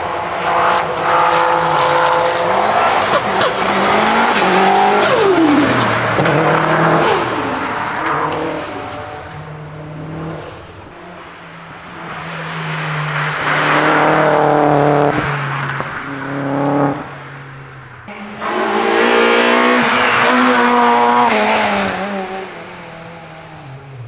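Race cars driven flat out past the track: engines rev high, drop at each gear change and fall in pitch as each car goes by, in several loud passes with quieter gaps between.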